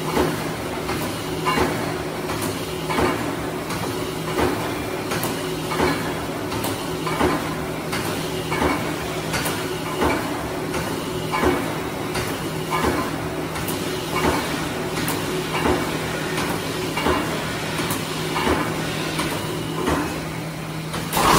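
Automatic wire mesh row welding machine running through its cycle: a steady electrical hum with a clank about every one and a half seconds and lighter clicks between. The hum stops near the end.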